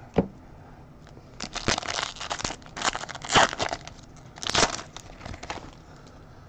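A trading card pack's foil wrapper crinkling and tearing as the pack is opened, in three short bunches of crackly rustling, with a sharp click just before.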